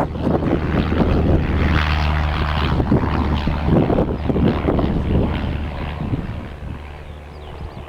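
Piston engine and propeller of a Slingsby light aircraft running with a steady drone, fading over the last couple of seconds, with wind buffeting the microphone.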